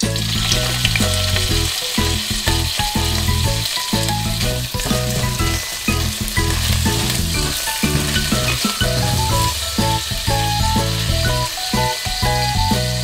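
Shrimp frying in hot sesame oil in a frying pan over medium heat: a steady sizzle that starts abruptly the moment they hit the oil, with a spatula stirring them around.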